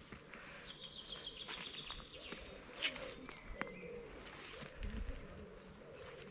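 Wild birds calling in woodland: a quick trill of high repeated notes about a second in, and a low wavering cooing later on.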